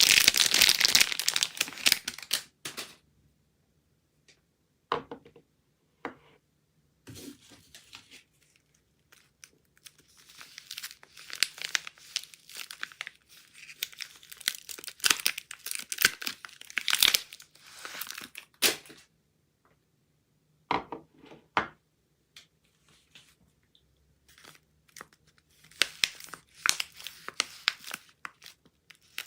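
Soap wrappers being crinkled and torn open by hand in several separate stretches, with a few single clicks and taps in the quiet gaps between them.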